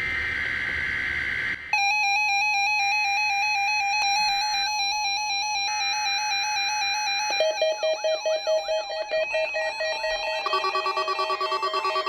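NOAA Weather Radio SAME digital header sent three times as screeching data bursts about a second apart. Several weather alert radios sound their electronic alert beeps over them, as they decode the Required Weekly Test. One radio starts beeping about two seconds in, a warbling alarm joins around seven seconds in, and another pulsing beep around ten seconds in.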